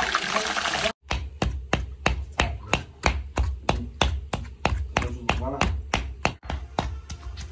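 Chicken sizzling in hot oil for about a second. Then raw chicken is chopped by hand with a knife on a wooden board while chicken is pounded with a wooden pestle in a stone mortar, a rapid string of sharp strikes at about four to five a second.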